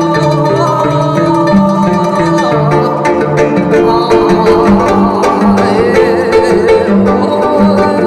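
Live ensemble music in a new Korean traditional style: plucked strings picking out notes over steady held tones, with a shifting bass line.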